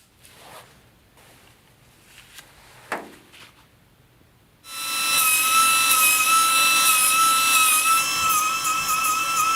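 A few light clicks and taps, then about halfway through a Nitto Kohki Baby Belton BB-10B pneumatic belt sander starts and runs with a steady high whine over the hiss of air. Its pitch wavers slightly near the end.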